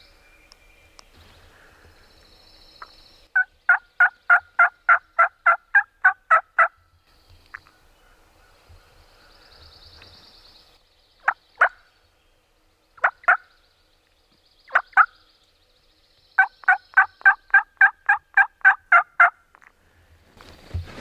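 Turkey yelping: a run of about a dozen evenly spaced yelps, about four a second, then a few single or paired yelps, then another run of about a dozen.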